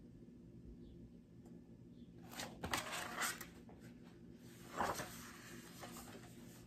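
Pages of a hardcover picture book being turned and the book handled: soft paper rustles about two seconds in and again near five seconds, over quiet room tone.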